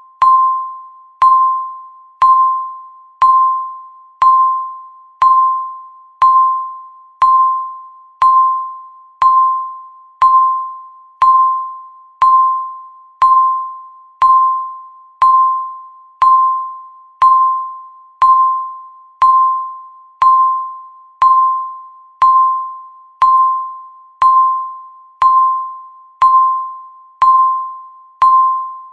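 Countdown timer's electronic beep, one clear pitched ding each second, each starting sharply and fading away, marking the seconds counting down.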